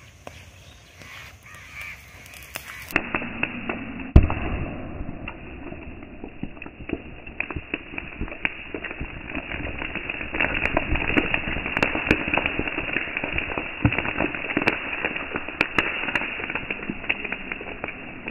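Sodium metal reacting violently with pond water. From about three seconds in, it fizzes and crackles with rapid sharp pops like firecrackers, and one loud bang comes about four seconds in. The popping grows denser in the second half as the burning sodium throws out sparks and spray.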